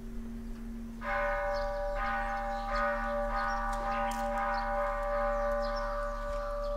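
A metal bell struck once about a second in, its several clear tones ringing on over a low steady drone.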